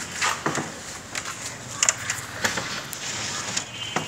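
A carved wooden door panel knocking and scraping as it is shifted on a bicycle cargo cart, with several short irregular knocks over outdoor background noise.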